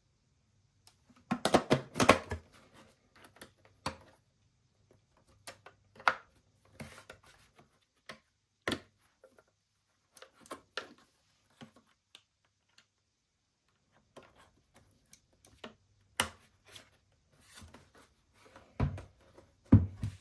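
Hard plastic clicks, knocks and rattles from a ResMed AirSense 10 CPAP machine and its humidifier tub being handled: a dense clatter about a second in, then scattered single clicks, and two low thumps near the end as the unit is set down on the desk.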